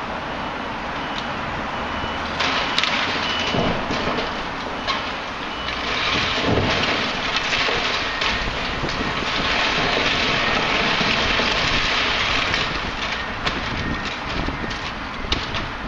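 Excavator demolishing a brick building: rubble and broken timber crashing and crackling, with many sharp knocks, louder for several seconds in the middle.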